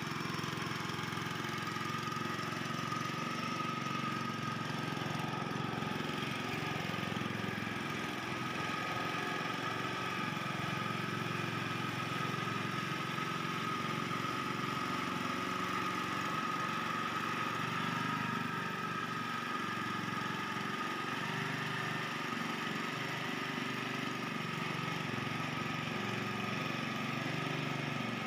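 BRRI hydrotiller's small air-cooled engine running steadily while the paddy tiller works through puddled mud, with a steady high whine over the engine hum.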